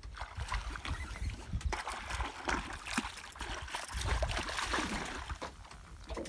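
Hooked tararira (wolf fish) thrashing and splashing in the water beside the boat as it is reeled in, in irregular splashes with short sharp clicks.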